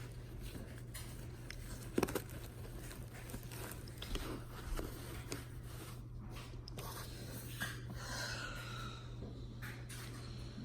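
Room tone with a steady low hum, and scattered small clicks and knocks of handling, the sharpest about two seconds in.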